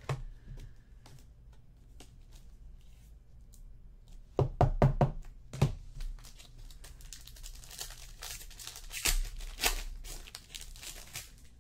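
Hands opening a foil trading-card pack and handling the cards: crinkling of the wrapper and rustling of cards, with a cluster of four or five sharp knocks about halfway through.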